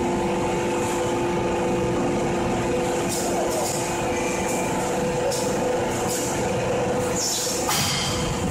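An 8-tonne hydraulic open-die forging hammer running: its hydraulic system gives a steady multi-tone hum. From about three seconds in there is a series of short hisses, several in quick succession.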